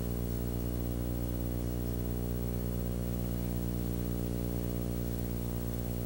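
Steady electrical mains hum with a stack of low overtones, under an even hiss.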